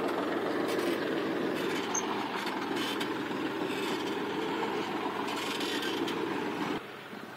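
John Deere 5103S tractor's three-cylinder diesel engine running steadily under load while it pulls a tine cultivator through the soil. The sound drops off sharply near the end.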